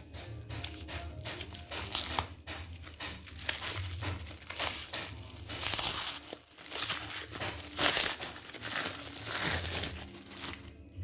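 Clear plastic shrink wrap crinkling as it is peeled off a roll of sticker tape by hand, in a run of rustling bursts that are loudest in the middle.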